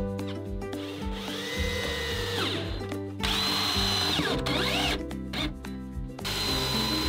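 Cordless drill-driver driving screws into a wooden frame in three short runs, its motor whine speeding up, holding and winding down each time.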